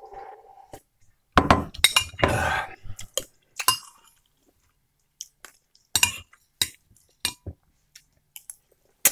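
Metal spoon clinking and scraping against a glass bowl, a string of short sharp clinks. There is a louder cluster of clatter between about one and a half and three seconds in, as the bowl is handled and set down.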